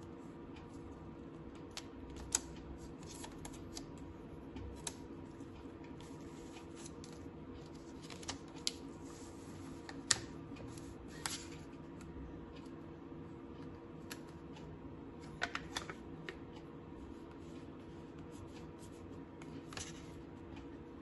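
Clear plastic wrapping being handled and peeled off a new flip phone: scattered sharp clicks and short crinkles of plastic over a faint steady hum.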